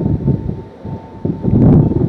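Gusty wind buffeting the microphone in uneven bursts, strongest about one and a half seconds in.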